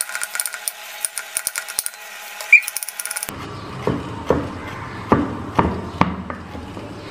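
Kitchen knife chopping garlic on a wooden chopping board. First comes a quick run of thin, light clicks, then about three seconds in, separate knocks of the blade on the board, two or three a second.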